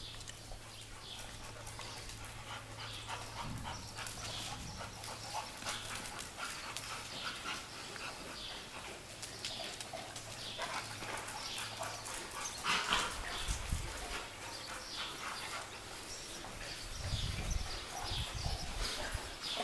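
A group of pit bulls whining and yipping in excitement, with scattered barks and a few louder bursts of activity partway through and near the end.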